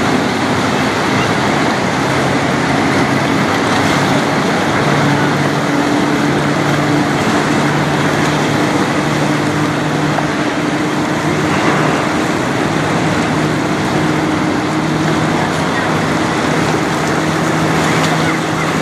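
Low steady hum of the bulk carrier Federal Churchill's diesel engine, coming in about five seconds in as the ship's stern draws near, over a constant rushing background noise.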